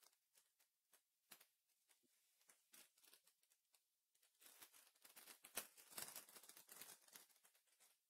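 Faint handling of trading cards being flipped through by hand: scattered light clicks and flicks, then a denser rustle of cards sliding against each other for about three seconds in the second half.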